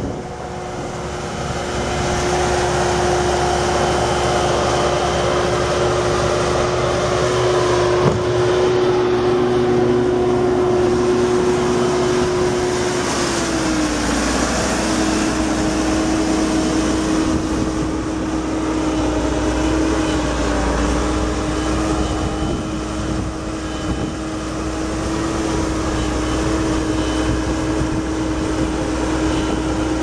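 Bobcat 963 skid steer's Perkins four-cylinder diesel running steadily under load as the machine drives and works its loader, with a steady whine that drops slightly in pitch a little before halfway. One sharp knock about a quarter of the way in.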